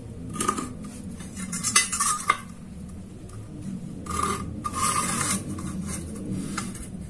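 Metal scriber scratching marks onto a steel rectangular tube along a steel try square, in about four short scrapes, with a couple of sharp metal clicks of the tool and square against the tube.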